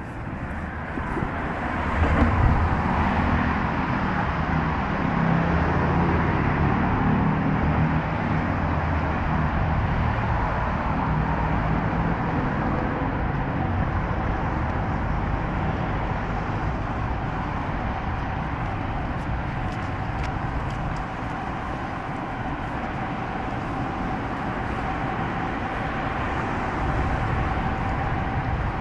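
Road traffic on a wide city street: vehicles passing, with a heavier low engine rumble in the first half, then steady traffic noise with a faint high steady tone.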